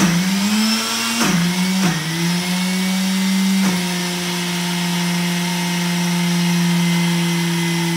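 Countertop blender motor running at speed, pureeing soaked black-eyed peas with a little water into a thick bean paste. Its pitch dips briefly a few times in the first four seconds, then holds steady.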